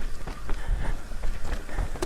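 Mountain bike descending a dirt trail: tyre and wind rumble with quick, irregular rattles and knocks from the bike over bumps.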